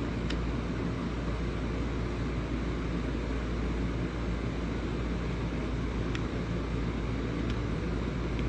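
Steady low rumbling background noise with no speech, with a few faint clicks, one just after the start and a couple more later.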